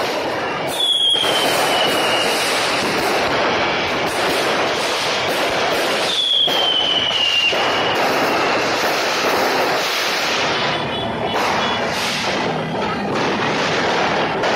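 Aerial fireworks going off close by in a dense, continuous barrage of crackling and bangs, with two whistles falling in pitch, about a second in and about six seconds in.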